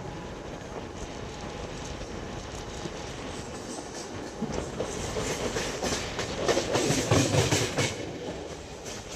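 Mumbai suburban local train running, heard from inside the carriage: a steady rumble with wheels clattering over the rail joints. It grows louder and more rattly from about four seconds in, peaks around seven seconds, then eases.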